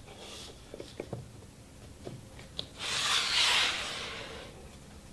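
Light clicks and knocks of a wooden workpiece and a toggle clamp being handled on a table-saw taper jig, then a scraping rub of wood sliding against the jig about three seconds in, lasting about a second and a half.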